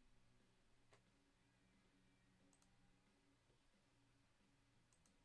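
A few faint computer mouse clicks, about four, most of them a quick double tick, as the randomizer button is clicked over and over; otherwise near silence with a faint low room hum.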